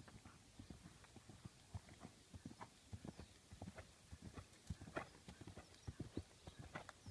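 Hoofbeats of an unshod horse trotting on hard, uneven grass ground: a run of dull thuds that grow louder over the last few seconds as the horse comes closer.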